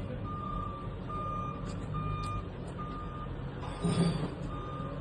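Heavy machine's backup alarm beeping steadily, a single tone about once a second, over a low engine rumble, with a thump about four seconds in.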